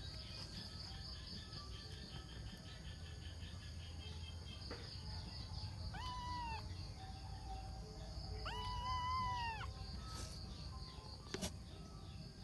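Ginger kitten mewing twice, high-pitched: first a short mew, then a longer one held for about a second.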